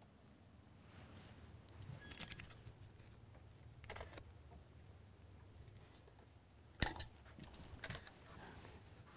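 Faint handling noise: light rustles and small clinks of hard objects being handled, with one sharp click about seven seconds in.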